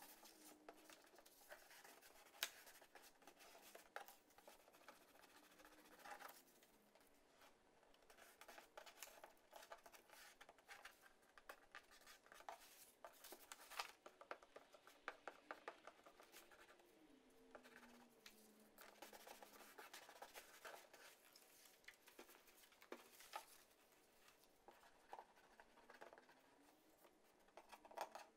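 Faint, irregular rustling and scratching of construction paper being handled and pressed onto a cardboard box, with a glue stick rubbing over the paper and occasional light taps and clicks.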